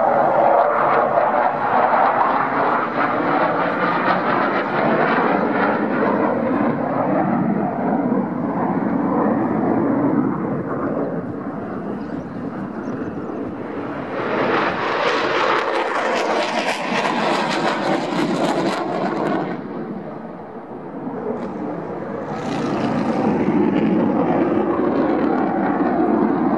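Jet engine roar of four F-16 Fighting Falcons flying in tight formation overhead, falling in pitch as they pass. Past the middle the noise swells louder and sharper for several seconds, then drops off suddenly.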